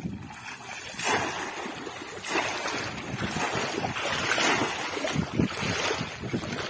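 Water splashing and churning in shallow floodwater as a bamboo fish trap (polo) is plunged in and lifted and hands grope inside it. The splashing comes in repeated surges.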